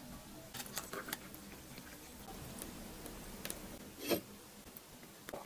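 A spoon scooping sticky grapefruit syrup into a drinking glass gives faint clicks, taps and scrapes against the glass. One louder knock comes about four seconds in.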